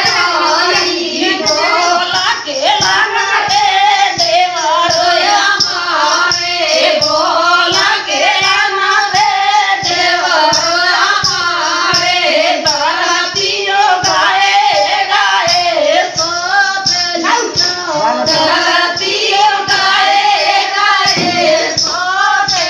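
Women singing a rustic Hindi folk dance song (naach geet) together, over a steady rhythmic percussion beat.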